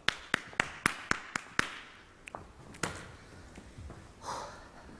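A run of seven sharp, evenly spaced taps at about four a second, then a few scattered taps, with a soft breathy sound near the end.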